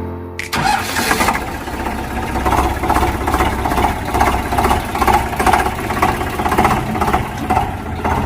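An engine starts about half a second in and keeps running roughly, with a regular pulsing of about two beats a second.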